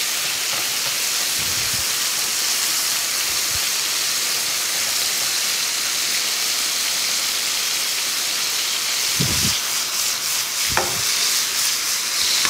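Thin strips of chicken breast sizzling in oil in a nonstick frying pan, a steady hiss as they cook through and brown lightly. Toward the end, a few short knocks and scrapes of a wooden spoon stirring them in the pan.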